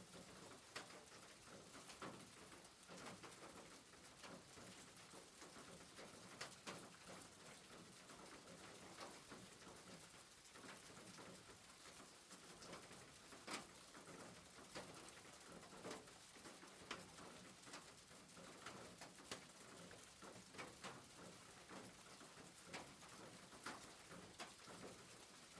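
Soft rain on a rooftop: a steady hiss with many single drops ticking irregularly.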